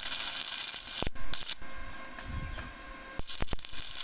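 Stick (MMA) electrode arc welding on steel tubing: the arc crackles and hisses with a few sharp pops. It dies down for about a second and a half past the middle, then picks up again.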